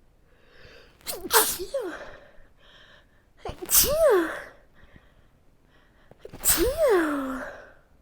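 A person sneezing three times, about two and a half seconds apart, each a sharp burst trailing into a short voiced cry, with a breath drawn in before each. These are allergy sneezes brought on by the change of seasons.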